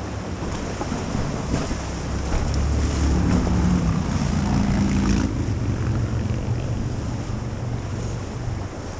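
River water rushing, with wind buffeting the microphone in a low rumble. The buffeting grows louder from about two and a half seconds in, then eases a little after about five seconds.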